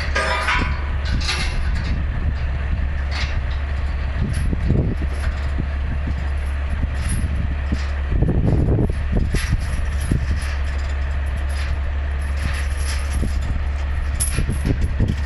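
Heavy diesel engine idling steadily with a deep hum, while steel tie-down chains clank and rattle now and then as they are unhooked from the hauled mining truck; the loudest clatter comes about eight seconds in.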